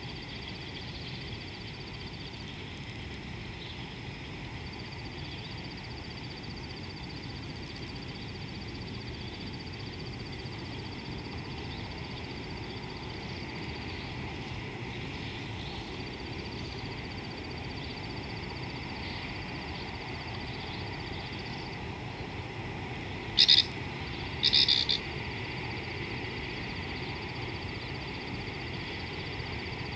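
Steady high-pitched trilling animal chorus, broken by a few short gaps, over a low steady background rumble. About three-quarters of the way through, two short, loud, sharp calls come about a second apart.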